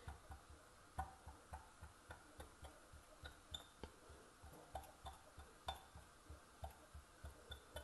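A metal fork pricking thin rolled-out dough, the tines tapping through onto the countertop in faint, quick clicks, about three or four a second.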